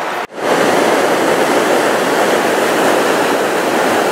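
Steady rush of a waterfall's white water pouring over granite at the brink of the fall, starting after a brief break about a quarter second in.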